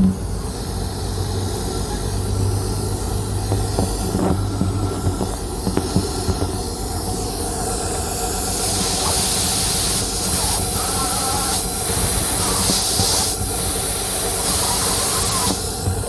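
Idling engine picked up through a funnel-and-tube listener. From about halfway in, a loud, steady air hiss comes in as the tube nears the leak, then cuts off shortly before the end. The hiss is a large vacuum leak from a failed O-ring on cylinder 3's fuel injector.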